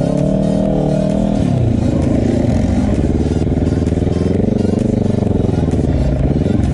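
Quad bike (ATV) engine revving up and easing off with the throttle while riding. Its pitch dips sharply just after the start and again about a second and a half in, wavers through the middle, and dips once more near the end.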